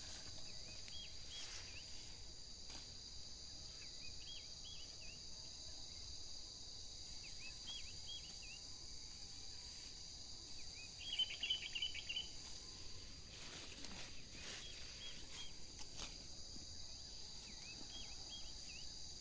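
A steady, high chorus of insects, crickets among them. Over it a short phrase of chirps, likely a bird's, repeats about every three seconds, and the loudest cluster comes about eleven seconds in.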